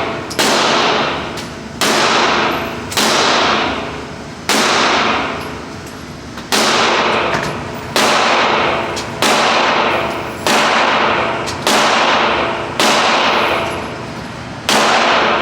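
9mm handgun shots, about eleven in a slow, steady string roughly a second or so apart, each sharp crack followed by a long echoing decay.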